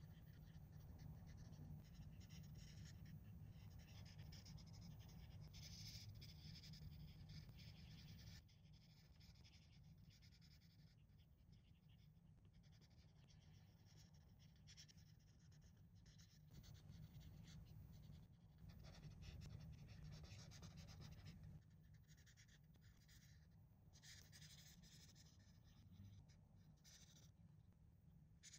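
Faint scratching of a Crayola Color Wonder felt-tip marker coloring on paper, in stretches of strokes that come and go.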